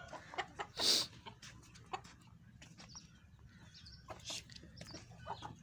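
Chickens clucking among scattered clicks and knocks, with a short, loud noisy burst about a second in.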